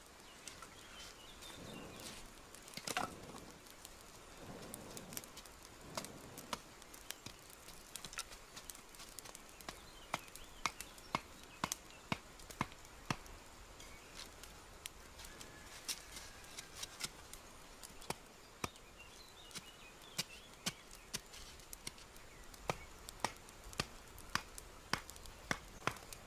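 Campfire of dry sticks crackling, with sharp pops coming irregularly, often one or two a second, and some soft rustling in the first few seconds.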